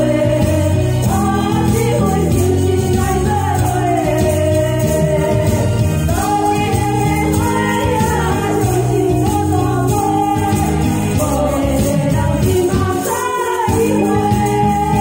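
Two women singing a duet into microphones over an amplified backing track, with hand tambourines shaken along.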